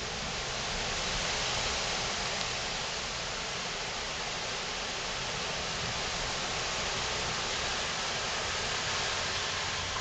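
Heavy rain falling steadily in a thunderstorm: an even, unbroken hiss.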